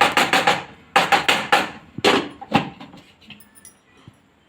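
A metal spoon knocking and scraping against a kadai in quick runs of strokes: two fast bursts, then a few single knocks that grow fainter.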